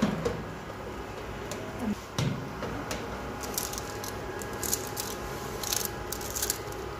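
Metal baking trays knocking and scraping as they are slid into and straightened in a countertop toaster oven, with a thud about two seconds in and parchment paper crinkling in the second half.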